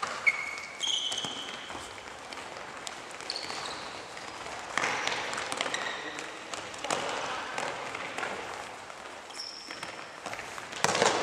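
Futsal players' shoe soles squeaking on a wooden gym floor: several short, high squeaks as they run and turn, mixed with the knocks of the ball being kicked and footsteps, echoing in a large sports hall.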